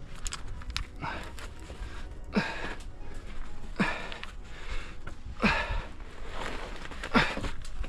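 A climber breathing hard while bracing down a rock chimney, with about five heavy exhalations roughly every second and a half and a few small clicks and scrapes at the start.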